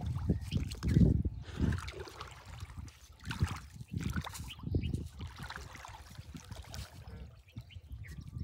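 Pond water sloshing and splashing as a person wades in up to the waist, in irregular swishes.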